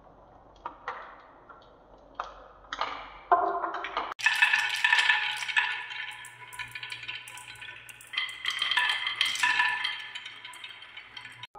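Marbles running through a wooden marble run. First come a few separate clicks and knocks with short ringing. After an abrupt change about four seconds in, a dense clattering rattle with ringing tones continues until another abrupt change near the end.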